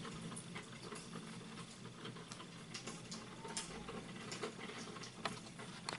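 Faint room tone with scattered small clicks and ticks, a few of them a little louder near the end.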